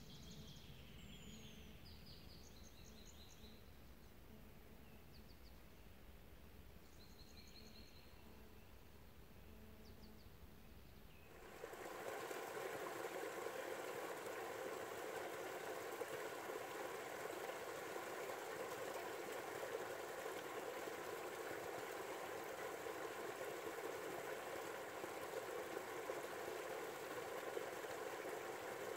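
Small birds chirping briefly over quiet countryside ambience, then a sudden switch, about a third of the way in, to the steady rush of flowing river water.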